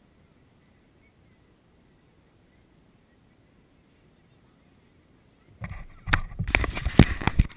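Near silence, then about five and a half seconds in a run of loud, irregular knocks and rubbing as the GoPro in its housing is handled close up.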